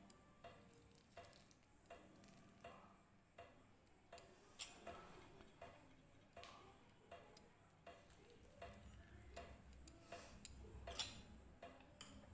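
Near silence with faint scattered ticks and small clicks from handling a bowl of raw chicken and spices as lemon juice is added, with two sharper clicks about four and a half and eleven seconds in.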